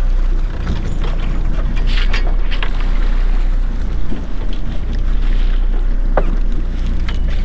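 Fishing charter boat's engine running with a steady low hum, wind buffeting the microphone, and a few faint clicks.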